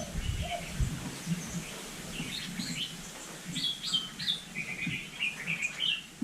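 Hill myna chirping and whistling: a run of short high notes, thicker in the second half.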